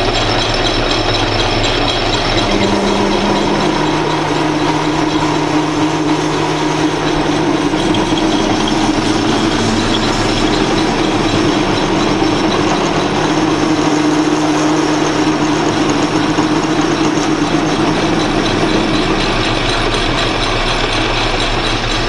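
Atlas metal lathe running steadily, a parting tool cutting off an inch-long piece of brass tube held in the spinning chuck.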